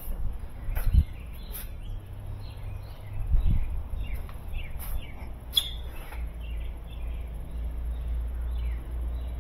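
Small birds chirping in short, repeated downward calls, over the knocks and scuffs of footsteps and handling as someone walks through a workshop. A low rumble grows stronger about six seconds in.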